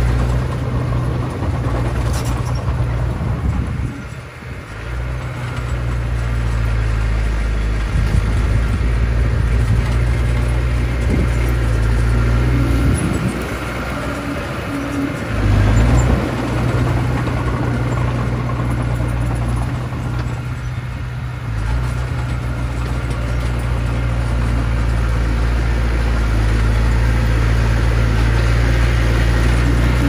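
Diesel engine of a small Komatsu crawler bulldozer running steadily under load while it pushes soil with its blade. The engine note sags briefly about four seconds in, again around the middle, and once more about two-thirds of the way through.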